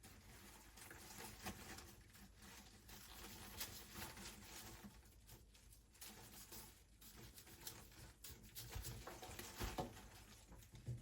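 Faint, irregular light taps and clicks of objects being handled, with a few slightly firmer knocks near the end.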